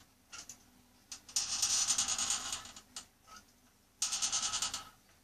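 Boilie bait gun being pumped to extrude paste sausages: two bursts of rapid mechanical ratcheting clicks, the first about a second and a half long, the second about a second, with a few light clicks between.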